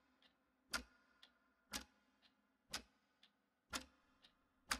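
Clock ticking, faint: a sharper tick about once a second with a softer tock halfway between each.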